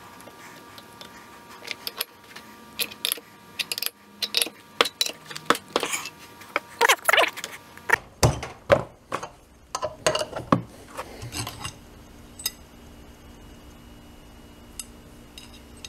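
Metal clinking and clanking as tools and a steel part are handled at a cast-iron bench vise: a quick run of sharp knocks and clinks that thins out after about ten seconds, leaving a faint steady hum.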